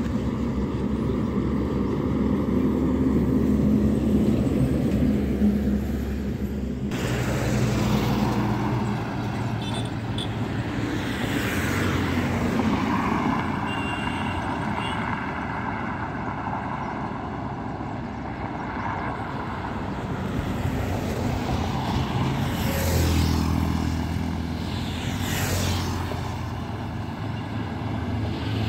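Highway traffic passing close by: trucks, cars and motorcycles go by one after another. Each vehicle's engine and tyre noise rises and fades as it passes, with a heavy engine drone from a large vehicle near the end.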